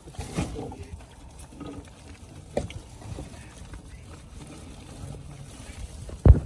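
Water trickling from a lifted shrimp net onto a pile of freshly caught shrimp in a boat's tarp-lined hold, with a few knocks as the net is handled. The loudest sound is a sharp thump near the end.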